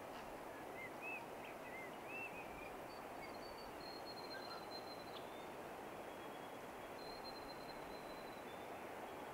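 Riverside ambience: a steady low rush of outdoor noise, with birds giving a few short up-and-down chirps in the first couple of seconds and thin, high whistled notes held for about a second at a time.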